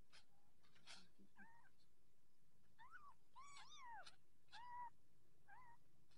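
Young kittens mewing faintly: about six short, high calls, each rising and falling in pitch, bunched together in the middle, mixed with a few sharp ticks.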